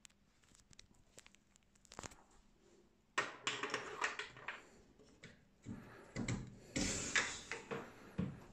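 A small metal latch on a wooden enclosure door being worked open and the door handled: a few faint clicks, then from about three seconds in a busy run of clicks, wooden knocks and scraping.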